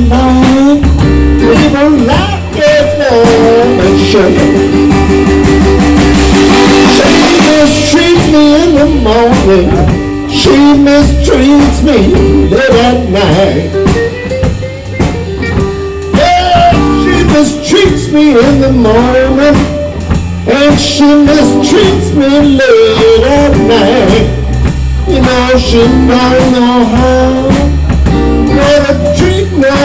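Live electric blues band playing: a male voice singing over electric guitar, electric bass and drum kit.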